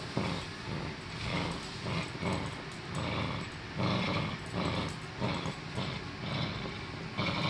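A Norfolk terrier play-growling while tugging a cloth toy, in uneven bursts about twice a second.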